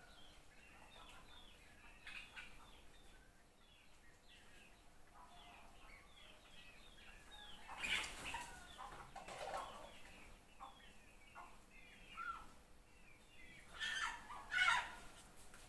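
Birds chirping with many short, quick calls, with louder, noisier flurries about eight seconds in and twice more near the end.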